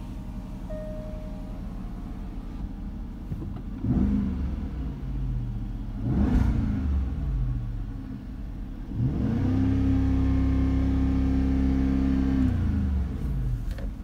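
2014 Jaguar XF's supercharged 5.0-litre V8 idling, then revved in park, heard from inside the cabin: two quick blips about four and six seconds in, then a longer rev held steady for about three seconds before dropping back to idle.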